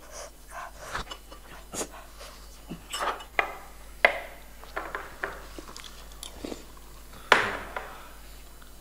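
Close chewing and biting of a mouthful of food, with scattered short clicks of a metal spoon on a wooden board and a louder sharp sound about seven seconds in.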